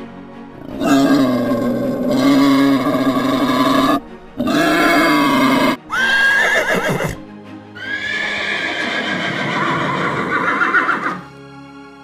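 Horse neighing: four long, loud whinnies one after another, one rising sharply in pitch about six seconds in, over soft background music.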